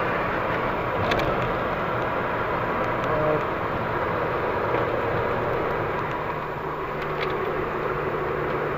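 Volkswagen Golf Mk5 GTI's 2.0-litre turbocharged four-cylinder running at steady part throttle under a constant wash of tyre and road noise, heard from inside the cabin. There are a couple of faint clicks, about a second in and again near the end.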